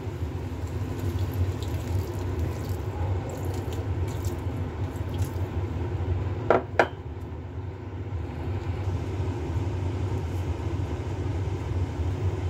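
Mussels simmering in a stainless steel pot over a steady low hum. About halfway through come two quick metallic clinks, as a glass lid is set on the pot.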